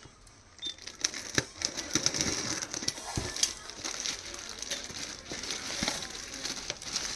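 Packaging of an iPad mini 4 being handled, starting about a second in: crinkling and rustling with many small clicks and taps.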